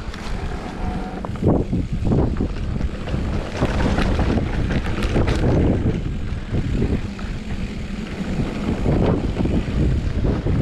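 Wind buffeting the microphone of a camera on a mountain bike in motion, a heavy fluttering rumble, with tyre noise on a wet, muddy trail and scattered short rattles from the bike.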